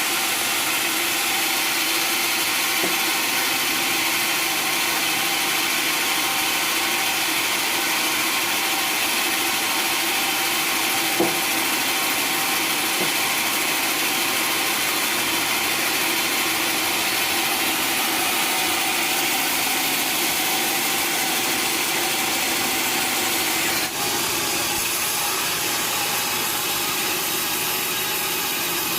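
Sawmill saw running steadily through timber, a continuous hissing, humming machine noise. One sharp knock about eleven seconds in.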